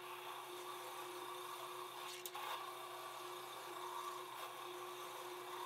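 Drill press running with a brass cup wire brush scrubbing rust off a length of rebar rolled beneath it: a steady motor hum under a rough, rasping brushing noise. One sharp click a little over two seconds in.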